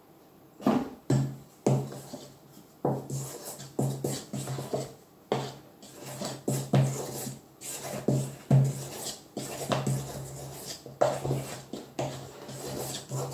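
A mesh sieve tapped a few times over a stainless-steel mixing bowl about a second in, then a spatula knocking and scraping irregularly around the metal bowl as sifted flour is folded into cake batter.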